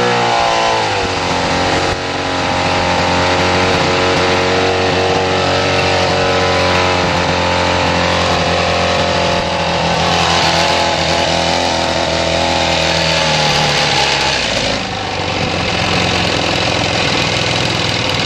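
Jet ski engine fitted in an aluminium tinny, running under way. Its revs drop during the first second, then hold steady, easing off slightly near the end.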